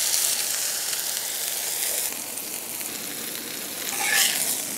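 Smash burger patty sizzling in its grease on a hot flat steel griddle plate, a steady frying hiss that eases a little about two seconds in. Near the end a metal spatula scrapes briefly across the plate as it slides under the patty.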